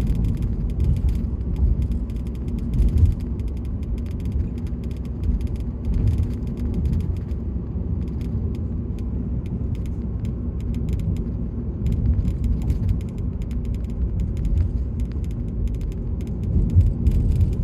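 Ford Focus cabin on the move: a steady low road rumble, with a run of small crackling ticks and creaks from around the door and its seal.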